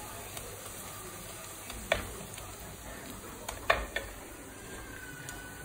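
Onions, green chillies and chilli masala sizzling in oil in a clay pot while being stirred with a wooden spatula, the masala frying until fragrant. A few light knocks of the spatula against the pot, one about two seconds in and a quick cluster a little past halfway.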